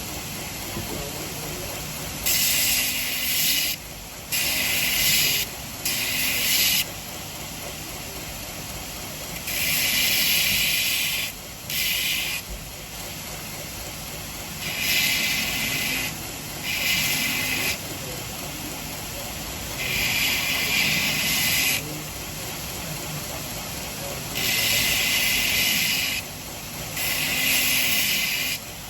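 Belt grinder running with a 120-grit belt while a stainless steel cleaver blade is drawn across it in about ten separate passes, each a hiss of steel on abrasive lasting a second or two, with the belt running steadily between passes.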